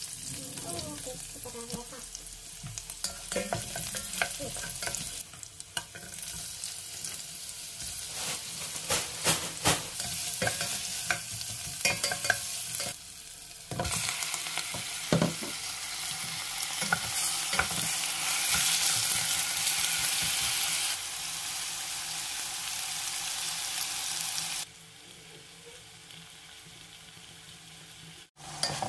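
Ginger and garlic sizzling in oil in a stainless steel pot while being stirred, the utensil clicking against the metal several times. Then chicken pieces and onion frying in the pot, the sizzle louder and steadier for a while before dropping off near the end.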